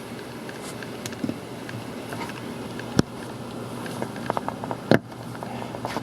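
Scuffing and rustling of someone moving through an attic over insulation and framing, with a sharp knock about three seconds in, a quick run of light ticks, and another sharp knock near five seconds.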